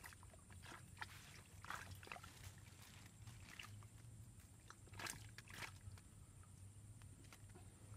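Quiet pond-edge ambience: a few faint, short splashes and sloshes of water, two close together about five seconds in, over a steady low hum.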